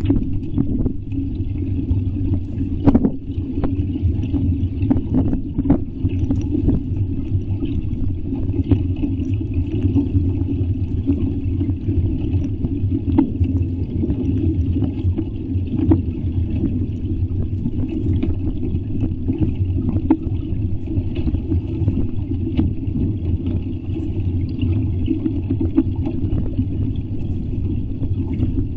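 Hailstorm: a steady, dense drumming of heavy rain and hail, with frequent sharp clicks of individual hailstones striking.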